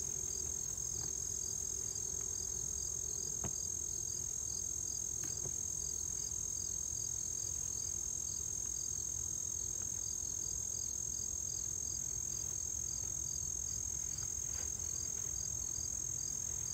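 Steady chorus of insects: a continuous high-pitched trill with regular chirping pulses a few times a second. There are a few faint knocks as hive woodware is handled.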